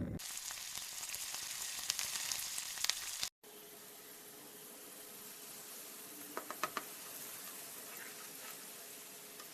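Food sizzling and crackling in hot oil in a pan. About three seconds in it cuts off sharply, and a quieter, steady sizzle follows, with a few light clicks a little past the middle.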